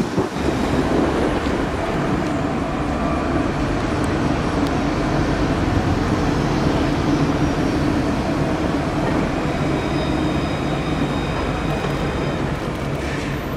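Alstom Citadis low-floor tram passing close by on street track: a steady rumble of wheels on rail and running gear, with a faint high whine joining in past the middle.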